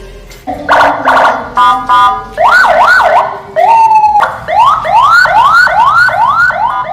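Senken CJB100BD electronic siren sounding loudly and cycling through its tones: a horn-like blast, a stepped two-note tone, quick up-and-down wails, then a run of rising sweeps repeating about twice a second.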